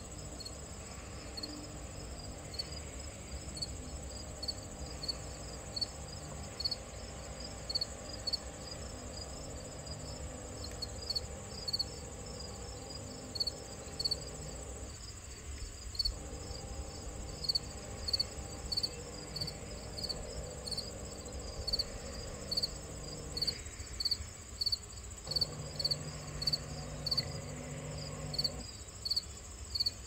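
Crickets chirping steadily, about two chirps a second, over a continuous high insect drone. Beneath them, the field robot's electric drive motors hum, cutting out briefly a few times.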